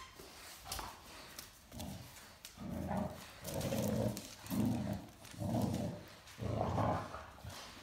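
Great Dane puppy growling during a game of tug of war, a string of about six rough growls of under a second each, starting about two seconds in.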